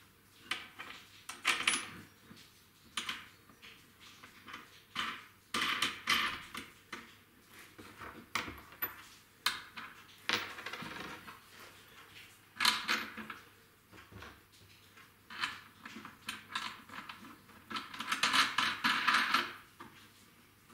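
Irregular clinks, knocks and short scrapes of small hard parts and hand tools being handled and set down on a workbench, with a longer rasping rub near the end.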